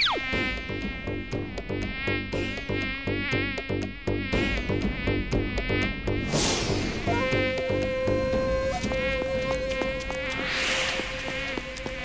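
Cartoon mosquito buzzing, a whining drone that wavers in pitch, with two whooshing swoops as the mosquitoes dart about, one about halfway through and one near the end.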